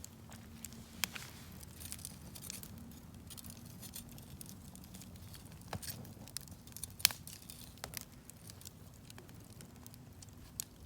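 Wood campfire crackling, with scattered sharp pops, the loudest about seven seconds in, over a faint steady low hum.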